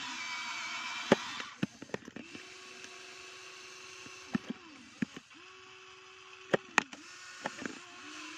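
Electric motors and gears of a Huina RC toy excavator whirring as the boom and arm move. A dense, higher gear whir for about the first second and a half gives way to a run of shorter motor whines, each rising into a steady tone and falling away as it stops. A few sharp clicks fall among them.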